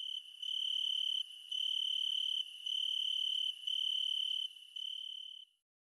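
A cricket chirping in a series of about five high, even-pitched trills, each close to a second long with short gaps between, cutting off shortly before the end.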